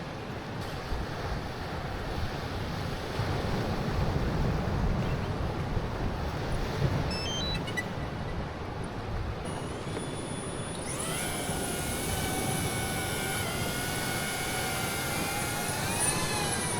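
Wind and surf noise, then a few short beeps about halfway through, after which a small camera drone's propellers spin up and hover with a steady high whine that rises briefly near the end.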